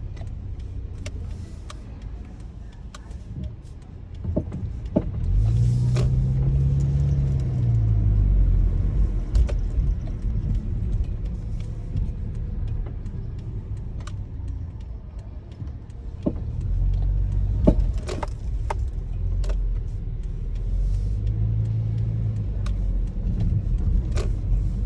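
2012 Subaru Legacy (BM9) moving with a low steady rumble, and sharp clunks and clicks at irregular moments from the right front suspension. The noise is the sign of a worn ball joint.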